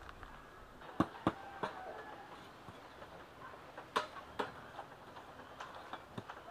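Sharp knocks of a tool striking bamboo, in irregular clusters: two close together about a second in, and two more around four seconds in.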